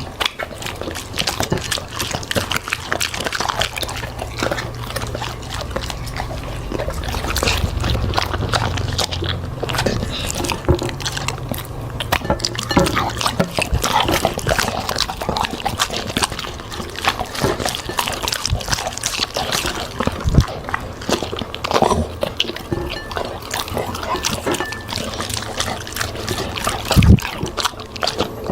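Dog chewing and eating vegetables, a fast, irregular run of crunches and smacking mouth sounds.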